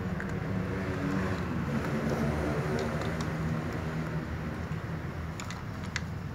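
Steady low rumble with a few small sharp clicks near the end, from cats eating out of plastic cups.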